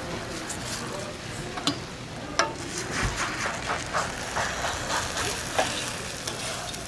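Buckwheat pancakes frying on an oiled griddle with a steady sizzle. A run of short knocks, about three a second, starts a couple of seconds in and stops before the end.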